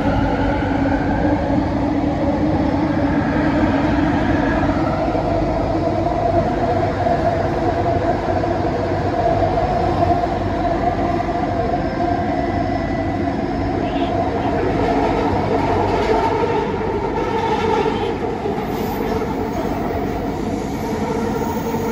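Interior running noise of a Bombardier Innovia ART 200 light-metro train in motion: a steady rumble with several humming tones, easing off slightly near the end.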